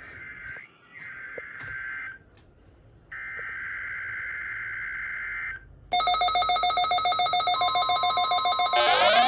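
Two bursts of buzzy, warbling Emergency Alert System header data tones. About six seconds in, a loud rapidly pulsing multi-tone alert sound starts and a steady tone joins it. Near the end a warning siren starts winding up, rising in pitch.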